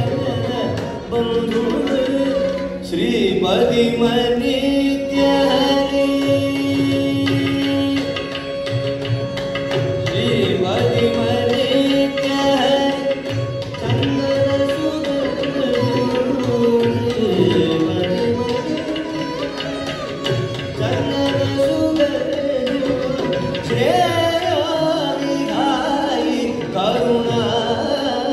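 Carnatic classical music in raga Bageshri: a male voice singing gliding, ornamented phrases with violin accompaniment, over the steady strokes of a mridangam and ghatam and a tanpura drone.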